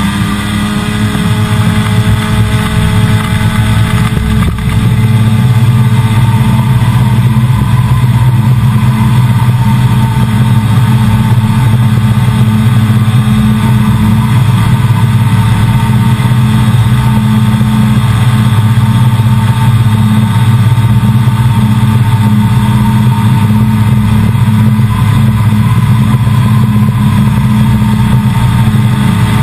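AirBorne weight-shift ultralight trike's engine and pusher propeller at full takeoff power, a loud steady drone through the takeoff roll and climb. The pitch settles in the first second after running up, and the sound grows a little louder about five seconds in.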